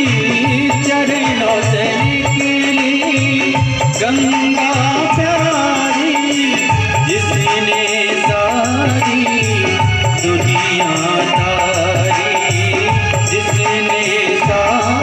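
Live Indian devotional music: a harmonium and a hand drum keeping a steady beat under a wavering sung melody, amplified through a PA.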